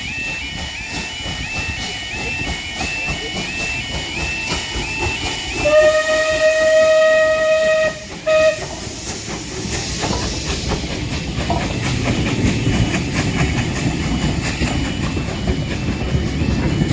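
Bulleid Battle of Britain class steam locomotive 34081 92 Squadron sounding its whistle: one long blast about six seconds in, a brief break, then a short toot. The train's rumble and steam hiss then build and stay loud as it passes. A repeating high two-note beeping runs through the first five seconds.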